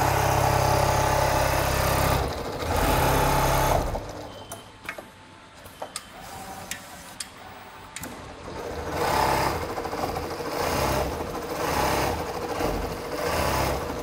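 Richpeace CNC sewing machine stitching at speed, a loud steady run with a brief break. About four seconds in it drops to a quieter stretch with scattered sharp clicks, then stitches again in short repeated bursts.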